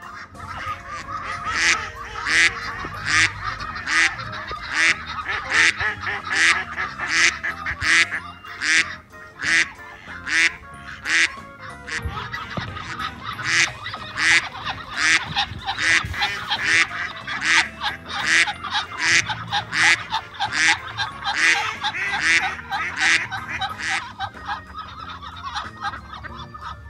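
Ducks quacking loudly over and over, about one and a half calls a second, with a short pause about twelve seconds in.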